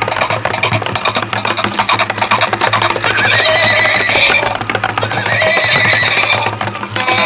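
A battery-powered walking toy pony playing its built-in electronic tune as it walks, with two high, wavering phrases in the middle.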